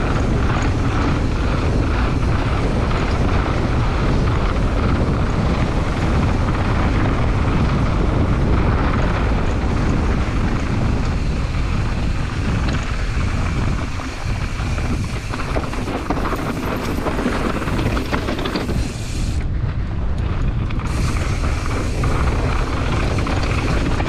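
Wind rushing over the camera microphone mixed with knobby tyres rumbling over dirt and the rattle of an enduro mountain bike descending at speed.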